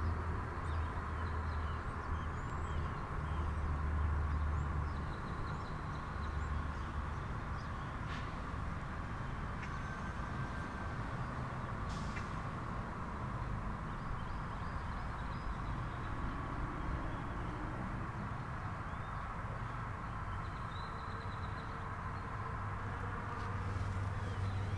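Motorcycle engine idling steadily with a low hum, the 1987 Honda CBR600F Hurricane's 600 cc inline-four.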